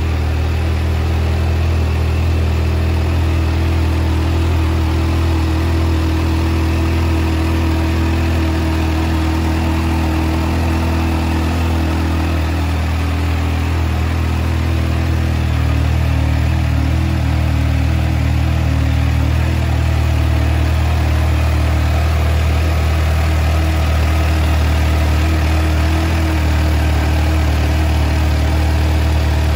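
Kawasaki Ninja H2 SX SE+ supercharged inline-four engine idling steadily.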